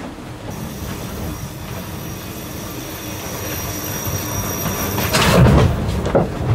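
Steady low rumble of an IMOCA 60 racing yacht's hull moving through the water under sail, with a faint high steady whine. A louder surge of noise comes about five seconds in and lasts about a second.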